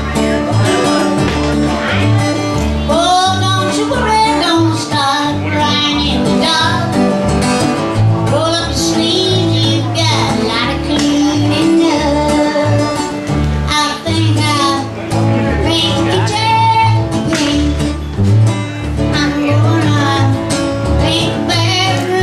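A woman singing a country-style song with acoustic guitar accompaniment, her voice held with vibrato on long notes over steady strummed and picked chords.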